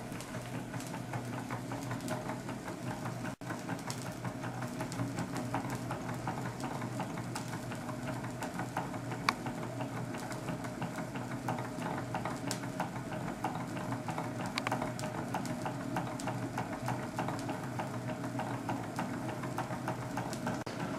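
Homemade Stirling (hot-air) engine running steadily, its linkage and flywheel giving a fast, even patter of small mechanical clicks over a constant hum.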